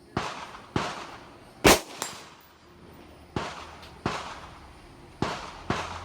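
Semi-automatic AR-15 rifle shots fired one at a time, about seven in quick but uneven succession, the third and loudest about a second and a half in.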